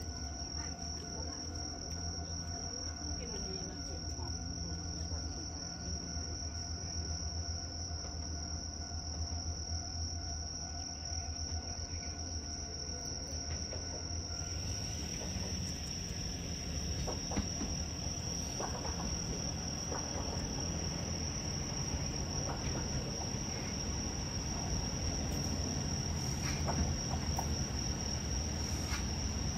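Crickets chirring in one steady high-pitched tone over a low rumble. About halfway through, the noise of an approaching diesel railcar grows as it pulls into the platform.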